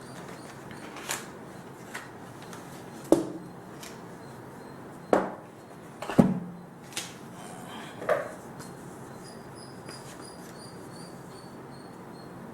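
A power bank's retail box being handled and opened by hand: a string of irregular knocks and taps, about seven in all, the loudest about three, five and six seconds in.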